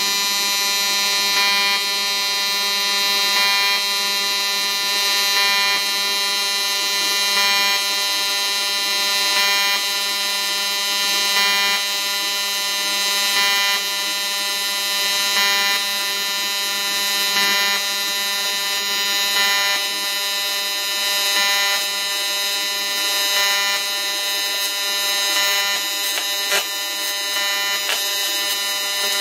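AC TIG welding arc on thin aluminium sheet: a steady electric buzz held without a break, with a few faint crackles near the end.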